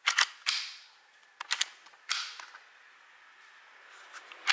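Sharp clicks and short sliding scrapes of an airsoft Glock 19's slide being worked onto its frame, a cluster in the first couple of seconds and one more click near the end. The slide is not seating: the slide lock may be fitted wrong.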